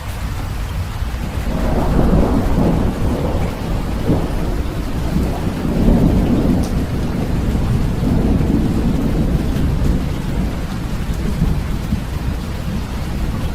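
Steady rain with a long roll of thunder that swells about a second and a half in, is loudest in the middle and rumbles off over several seconds.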